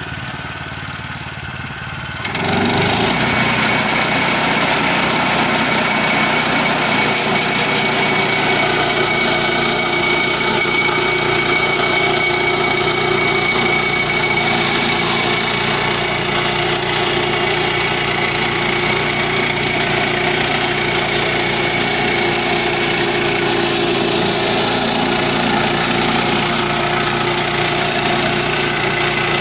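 Portable bandsaw sawmill's small gas engine throttles up about two seconds in, as the blade engages. It then runs steadily under load while the band blade cuts along a log.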